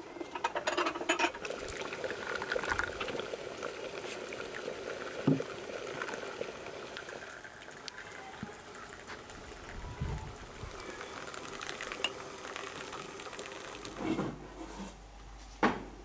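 Tea being poured into porcelain cups: brewed tea from a china teapot and hot water running from a samovar's tap, with light clinks of china. The pouring stops about two seconds before the end.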